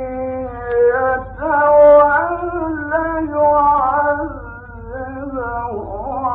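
A man's voice chanting Quran recitation in the melodic Egyptian style, drawing out long, ornamented notes that bend up and down, over a steady low hum from an old recording.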